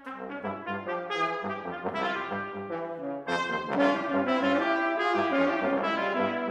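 Trumpet, French horn and bass trombone playing together in a fast, busy passage, with the bass trombone's low notes repeating in an even pulse underneath. The playing gets louder about three seconds in.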